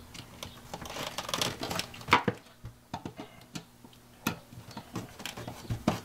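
Scattered small clicks and rustles of wires being worked into a GFCI electrical outlet by hand, with a sharper click about two seconds in, over a faint steady hum.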